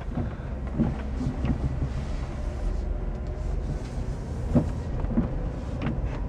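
Low, steady rumble of a 2004 Chevy Avalanche's 5.3 L V8 and its road noise inside the cab while driving slowly, with a few short knocks.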